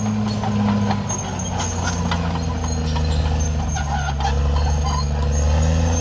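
Caterpillar D6R XL bulldozer's six-cylinder diesel engine running steadily under load as the crawler moves forward, with clanks and knocks from its steel tracks over it.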